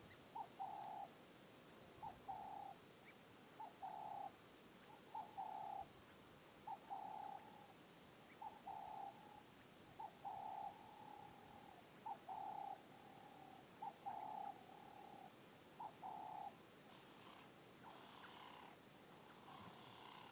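Faint cooing of a dove: a short note and then a longer held note, repeated steadily about every second and a half, some eleven times, until it stops near the end. A few fainter, higher bird calls follow.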